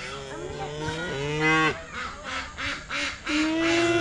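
Highland calf mooing: two long, drawn-out moos, the second starting about three seconds in, with a few short low calls between.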